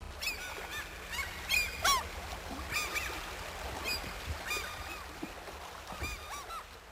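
A flock of gulls calling: many short, sharp cries that overlap, thicker in the first half and thinning toward the end, over a low steady rumble.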